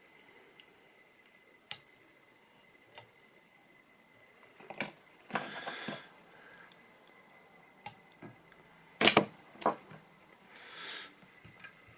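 Hands handling fly-tying tools and materials at the vise: scattered light clicks and taps with short rustles, and two sharper knocks about nine seconds in.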